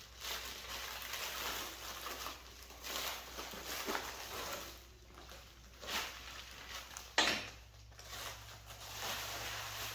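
Packing material rustling and crinkling as parts are lifted out of a shipping box, with a sharp click about seven seconds in.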